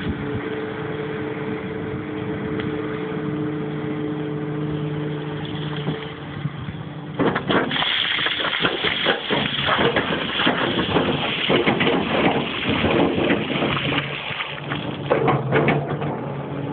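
Komatsu PC340LC excavator's diesel engine running steadily. About seven seconds in, a run of loud crunching and grinding of rock breaks in for several seconds, then the engine hum comes back with a few knocks.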